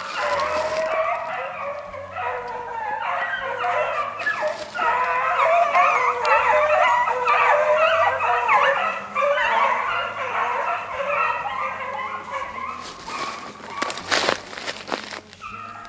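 A pack of hunting hounds baying and howling in full cry, several voices overlapping without a break: the dogs running the scent trail of a snowshoe hare. A few brief scraping noises come near the end.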